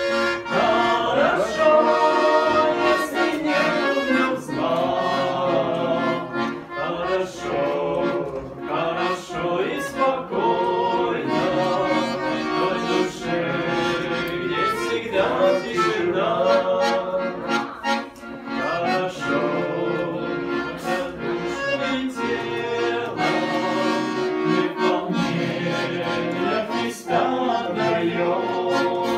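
Accordion playing a hymn tune with melody over sustained chords, as an instrumental passage between sung verses.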